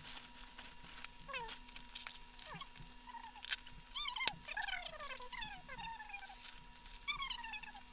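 Many short animal calls, each falling in pitch, coming one after another and sometimes overlapping, mixed with the crinkle of plastic bubble wrap being handled.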